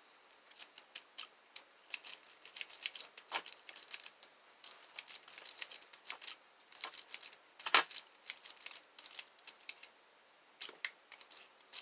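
Metal lock pick raking the pins inside a lock: rapid, irregular metallic clicking and scraping, with one louder click about eight seconds in and a brief pause near ten seconds.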